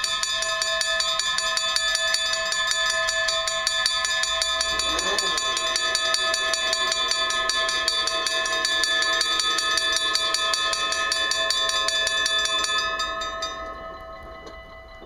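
Dutch level-crossing warning bells ringing, a rapid, steady clanging of several tones at once while the barriers come down. The ringing fades out a second or two before the end, once the barriers are fully lowered.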